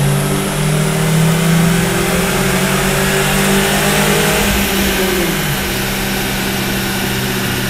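Turbocharged Perodua Myvi engine running on a chassis dyno. Its pitch creeps up for about four seconds, then falls away about five seconds in and settles to a steady lower note.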